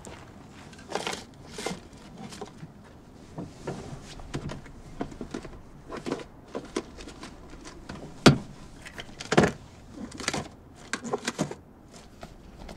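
Someone rummaging through a parked car's interior and a bag on its seat: irregular rustling, clicks and knocks of things being handled, with a sharp knock a little past the middle as the loudest sound.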